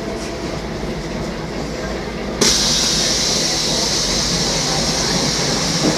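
Cabin sound of a Mercedes-Benz O500MA articulated diesel bus running, a steady low rumble. About two and a half seconds in, a loud hiss of air comes on suddenly and keeps going.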